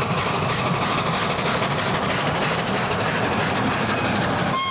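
ČSD class 464.2 steam locomotive 464.202 'Rosnička' working a passenger train past, its exhaust beating about two to three times a second over the running noise of the wheels and coaches. The whistle starts to sound at the very end.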